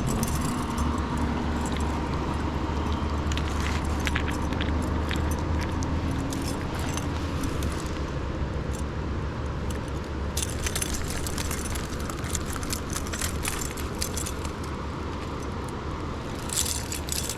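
Steady rushing noise of a flowing trout stream with a low rumble, and scattered light clicking and rattling, mostly in the second half, as a hooked trout is fought on rod and reel.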